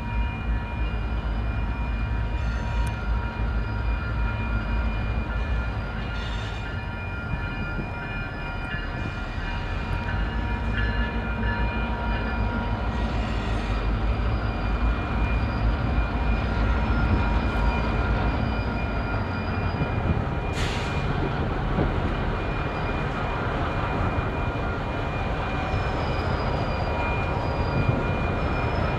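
Two EMD GP38-2 diesel locomotives with 16-cylinder EMD 645 engines, running as they roll slowly through a grade crossing, under the steady ringing of the crossing's warning bell. A single sharp knock about twenty seconds in.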